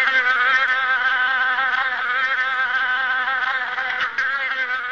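A steady, high buzzing whine like a mosquito's, its pitch wavering finely throughout.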